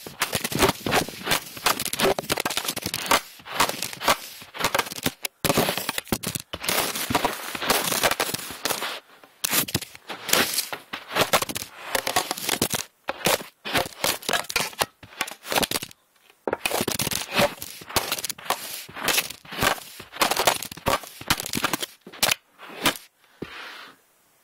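Handling noise on a phone's own microphone: a dense run of scrapes, rubs, knocks and crackles as the phone is jostled and fumbled in the hand, broken by a few short pauses.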